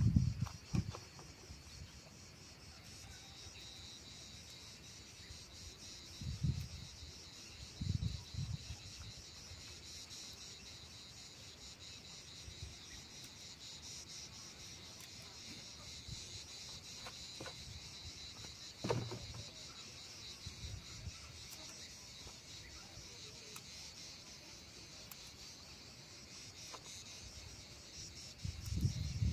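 Steady high-pitched chorus of insects chirring in a summer garden, with a few soft knocks and rustles now and then, the loudest near the start.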